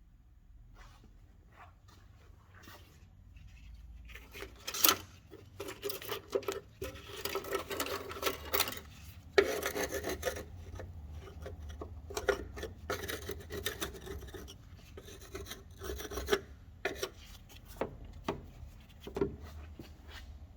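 Cured car body filler on an Opel Ascona body panel being abraded by hand in irregular back-and-forth strokes, starting a few seconds in, with a few sharp knocks of the tool against the panel.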